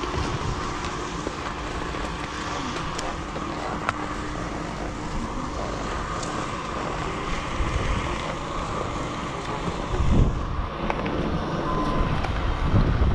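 Steady mechanical rumble and hiss of a chairlift's drive machinery running at the loading station, with a faint steady hum. A burst of low rumble about ten seconds in, like wind buffeting the helmet-camera microphone.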